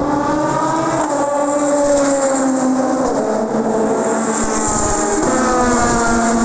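Race car engines running, several engine notes at once, each sweeping slowly up and down in pitch.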